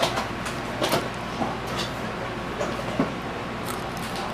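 Kettle corn being chewed, with scattered crisp crunches, and the plastic snack bag crinkling as a hand reaches in, over a steady low hum.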